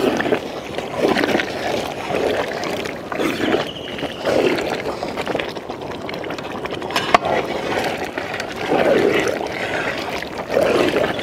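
A long paddle stirring a huge pan of thick fish curry, sloshing through it in strokes about once a second, with a single sharp knock about seven seconds in. The stirring keeps the curry from sticking to the bottom of the pan.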